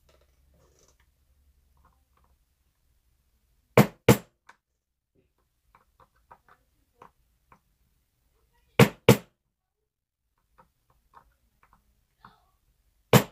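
Small hammer tapping a Medeco cam lock's parts down to seat them: two sharp taps in quick succession about four seconds in, two more about nine seconds in, and a single tap near the end, with faint small metal clicks between.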